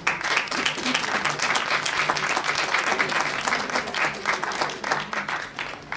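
Applause from a small audience clapping their hands, dying away at the end.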